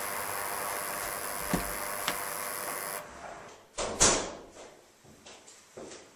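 Door entry intercom giving a steady electronic buzz and hiss for about three seconds, cut off abruptly. Then a few separate knocks and thumps, the loudest just after the buzz stops.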